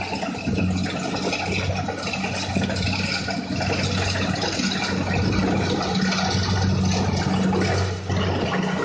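Farm machine's engine running steadily under a noisy mechanical clatter, with a brief dip about eight seconds in.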